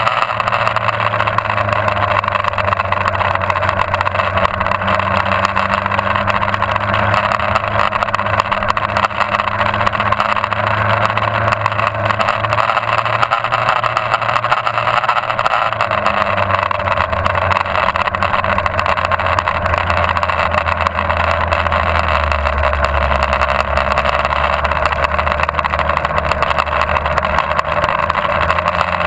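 Motorcycle riding on a track, heard from a camera mounted on the bike: a steady rush of wind over the microphone with the engine's drone underneath. The engine note drops lower about three-quarters of the way through.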